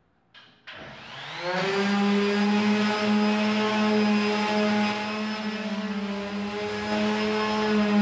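Corded electric palm sander switched on: its motor whines up in pitch for about a second, then runs steadily while sanding the plastered ceiling.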